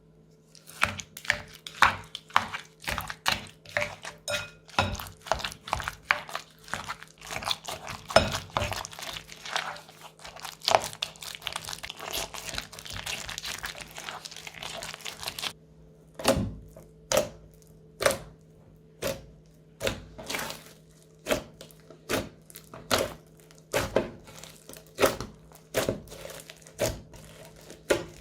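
Crunchy slime being squeezed and pressed by hand, giving crisp crackling and popping: a dense run of crackles for about the first fifteen seconds, then separate sharp pops about once or twice a second.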